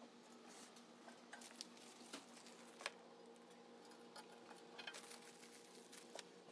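Faint, scattered light clicks and taps of screws and washers being fitted by hand into a steel roof rack, with one sharper click about three seconds in.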